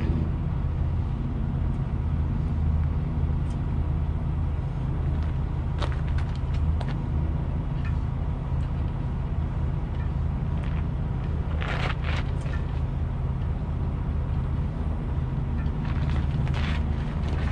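Concrete pump truck's diesel engine idling steadily, with a few short metallic clanks of tools and parts, the loudest about twelve seconds in.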